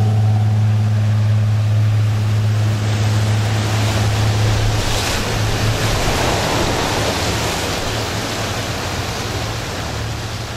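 Powerboat engines droning steadily at speed, over the rush of waves, spray and wind. Partway through the drone weakens while the rush of water and wind carries on, and the whole sound starts to fade near the end.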